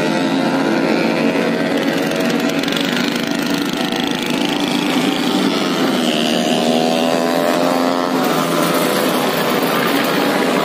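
Heavy diesel truck engine running under load. About six seconds in the engine note dips, then rises steadily again, as on a gear change and acceleration.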